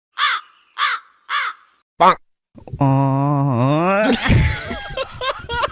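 A string of comic sound effects: three short caw-like calls about half a second apart, then a brief sharp squawk. This is followed by a long, buzzy pitched tone that dips and then rises, breaking into a jumble of quick clicks and noises near the end.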